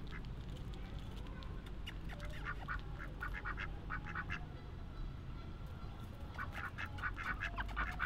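White domestic ducks quacking in quick runs of short calls, one run a couple of seconds in and another near the end.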